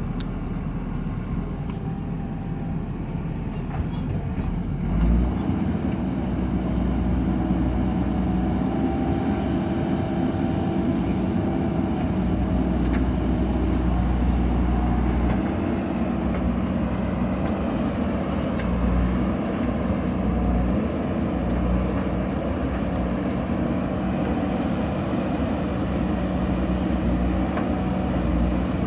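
JCB backhoe loader's diesel engine running under load. It grows louder and fuller about five seconds in, then holds a steady working note.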